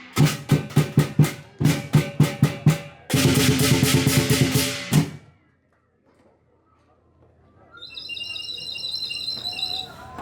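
Lion dance percussion: a large drum beaten in a fast rhythm with ringing cymbals and gong, which stops abruptly about five seconds in. After a couple of seconds of near silence, a high warbling, whistle-like tone begins near the end.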